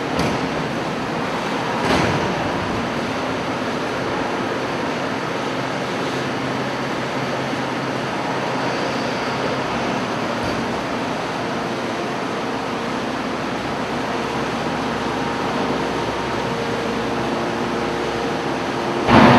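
Hydraulic steel wire baling machine running, with a steady hum and a few steady tones. There is a short knock about two seconds in and a louder clank near the end.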